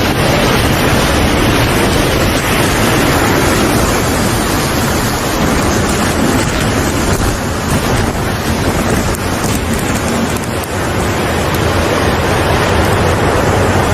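Loud, steady rushing noise of storm wind and water.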